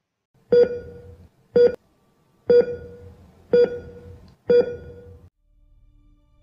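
Electronic beep sound effect, five beeps about a second apart, each starting sharply and fading quickly. A faint low drone comes in near the end.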